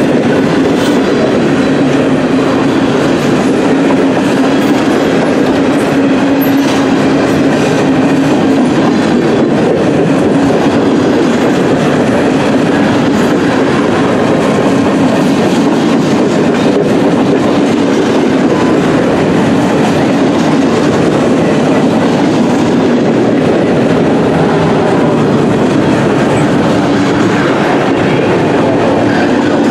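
Boxcars and flatcars of a long freight train rolling past close by: steady, loud rumble and clatter of steel wheels on the rails.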